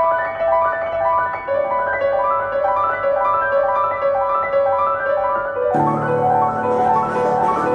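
Two grand pianos playing a minimalist pattern of short repeated notes in an even pulse, the lowest repeated note dropping a step about a second and a half in. Near the end a deeper note and a brighter, hissy, ticking percussive layer come in.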